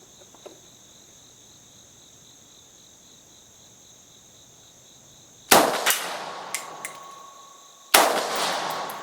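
Two single shots from an AK-74 rifle in 5.45×39 mm, about two and a half seconds apart, each a sharp crack followed by a long echoing tail. Insects chirr steadily in the quiet before the first shot.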